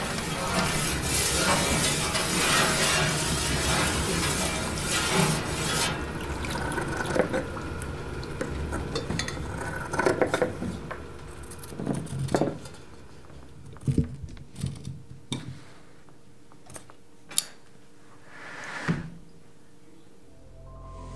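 Fabric being handled and cut with scissors on a table: a dense clattering noise for the first several seconds, then scattered clicks, knocks and short swishes.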